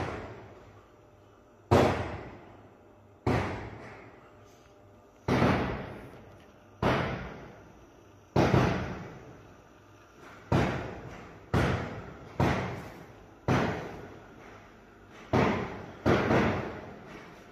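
About a dozen sharp bangs like gunshots, one every one to two seconds, each with an echoing tail that dies away, coming in slightly irregularly with a few close together near the end.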